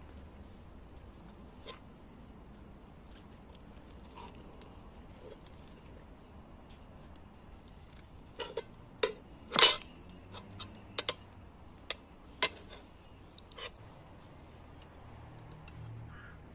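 Metal spoons clinking and scraping against a metal baking tray of baked pumpkin as portions are scooped out. A few faint clicks at first, then a quick run of sharp clinks a little past halfway, with one loud clink among them.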